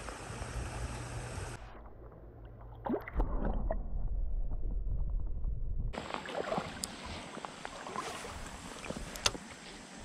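Water sloshing and rustling handling noise with a low rumble, then scattered small clicks and taps.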